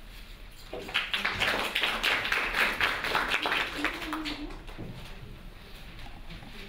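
Audience applauding: many hands clapping together, starting about a second in and fading out after about three and a half seconds.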